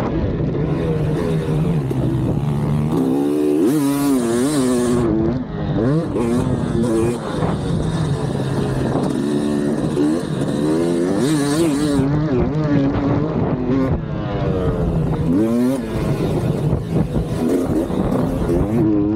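KTM 300XC two-stroke single-cylinder dirt bike engine heard from on board, revving up and falling back again and again as the rider works the throttle and shifts through the gears.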